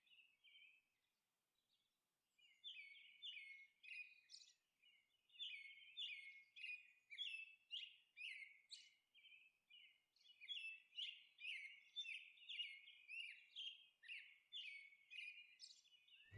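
Faint birdsong: a stream of short, quick chirps that stops for a couple of seconds near the start and again briefly past the middle.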